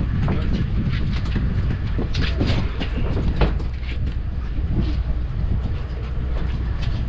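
Steady low drone of a large fishing boat's machinery, with irregular clicks and knocks of tackle and gear handled at the rail.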